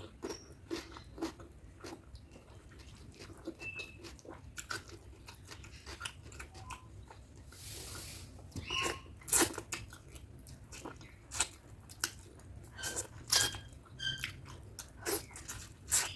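Close-miked chewing and mouth sounds of someone eating chicken curry with rice: irregular sharp wet clicks and smacks of varying loudness, with a short breathy hiss about halfway through.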